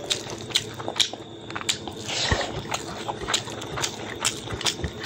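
Close-miked chewing of an oily mouthful of rice and pork gravy, with irregular wet mouth clicks and lip smacks.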